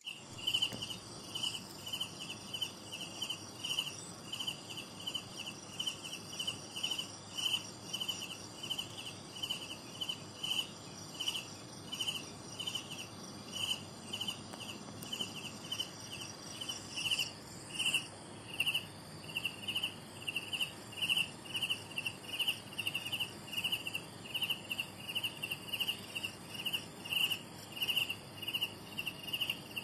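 Cricket chirping: a steady series of short, high-pitched chirps, about two a second.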